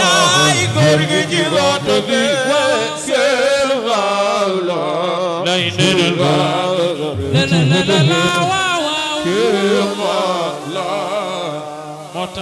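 A man chanting an Islamic devotional praise song, drawing out long melismatic notes with a wavering, ornamented voice. The chanting trails off near the end.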